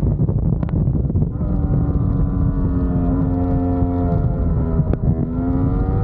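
Yamaha R1 superbike's crossplane inline-four engine at racing speed, with heavy wind rush on the microphone. About a second in, the engine note comes through and falls steadily as the bike slows for a corner. A sharp click comes near five seconds, then the note climbs again as the bike accelerates.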